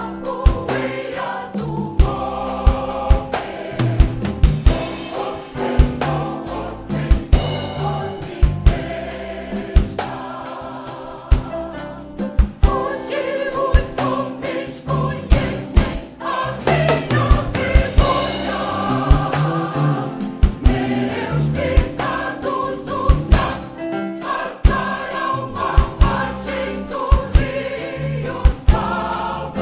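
Choir singing a gospel song over a band accompaniment, with a steady drum beat.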